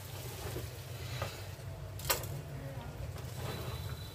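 Spatula stirring cooked rice in a pan: soft scraping with a few clicks of the spatula against the pan, the sharpest about two seconds in, over a steady low hum.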